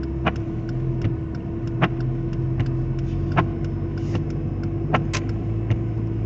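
Inside a small car driving slowly over a snow-covered road: steady engine and road noise with a steady hum, broken by irregular short sharp ticks, one or two a second.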